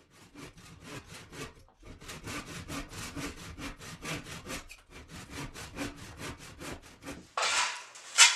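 Hand saw cutting wood in quick back-and-forth strokes, about five a second, pausing briefly twice. Near the end a loud rushing burst of noise takes over.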